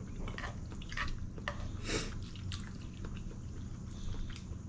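Wet eating sounds: ramen noodles being slurped and chewed in short bursts, with a few small clicks.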